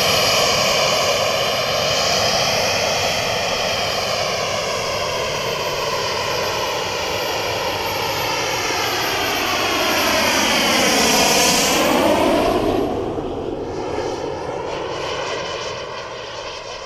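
Krill Avanti S model jet's JetCat turbine running as the plane flies past, getting louder to a pass about two thirds of the way in with a sweeping change in tone, then fading as it flies away.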